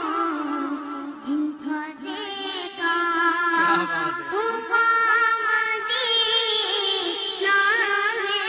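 A child's voice singing a slow melody, the held notes wavering and ornamented.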